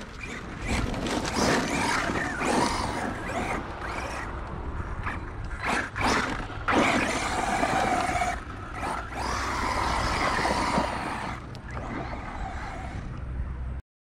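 ARRMA Mojave RC desert truck driving hard on loose sand: its brushless electric motor whines up and down with the throttle, over the hiss and spray of the tyres throwing sand and grit. It cuts off suddenly near the end.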